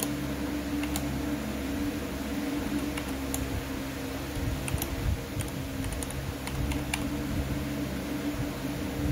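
Computer keyboard keys clicking irregularly as a password is typed, over a steady background hum.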